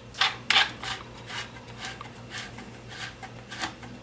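Handling noise from the Remington 870's magazine cap being screwed back onto the magazine tube: two sharp metal clicks early on, then lighter scrapes and taps.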